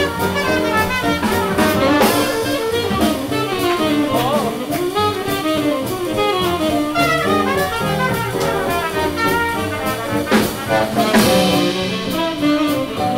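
Live swing jazz band playing, with saxophone and trumpet over electric archtop guitar, double bass and drum kit. Cymbal crashes come about two seconds in and again around ten seconds in.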